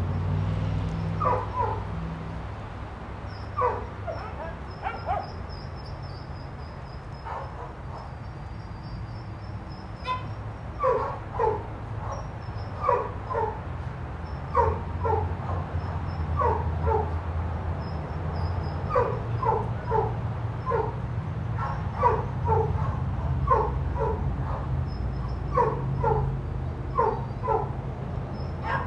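A dog barking off and on in short, pitched barks, mostly two in quick succession, every second or two, with a pause of a few seconds early on, over a steady low hum.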